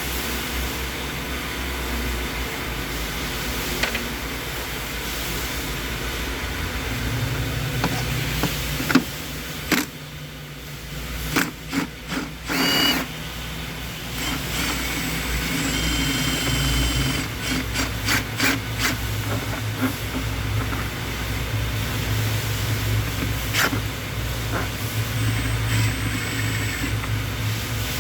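Hand tools working on truck fasteners: scattered metal clicks, knocks and short squeaks, busiest in the middle, over a steady low mechanical hum.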